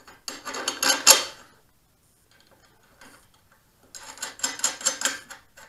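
Rapid metallic clicking and clinking as square-section steel brackets are test-fitted to a steel frame. It comes in two runs, one near the start and one from about four seconds in, with a pause between.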